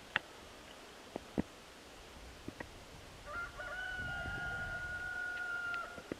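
A rooster crowing once, starting about three seconds in: a short rising opening, then one long held note of nearly three seconds that cuts off sharply. A few faint clicks come before it.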